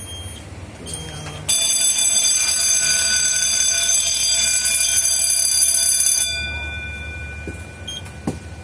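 Fire alarm bell, set off by a smoke detector test, rings steadily for about five seconds starting about a second and a half in, then stops and rings out. Short high beeps come just before it starts and again near the end.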